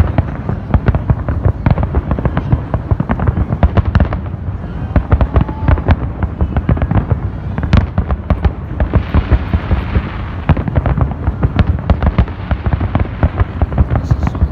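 Fireworks display going off in a dense, rapid barrage of bangs and cracks, with a stretch of crackling hiss about two-thirds of the way through.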